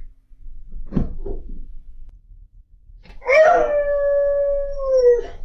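A dog howling: one long steady howl held for about two seconds, starting about three seconds in. About a second in there is a single sharp knock.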